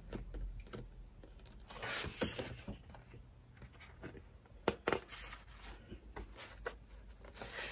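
Pages of a large hardback photo book being handled and turned: soft paper swishes and rubbing, with a couple of short sharp paper snaps a little after the middle.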